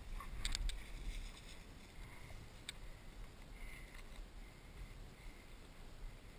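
Low, steady rumble of wind and handling noise on a body-worn action camera's microphone while walking through grass. A few sharp clicks come about half a second in and once near three seconds.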